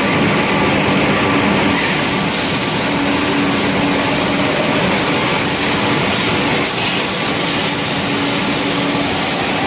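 Steady mechanical din of pellet mill plant machinery running, with a Hyster forklift working close by as it lifts and moves a bulk bag. There is a constant low hum, and a higher hiss joins about two seconds in.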